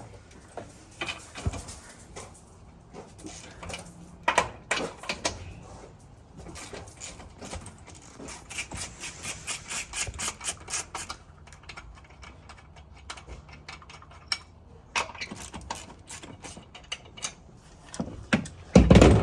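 Scattered clicks and rattles, as of small hard parts being handled, with a run of quick, evenly spaced clicks in the middle and a louder knock near the end.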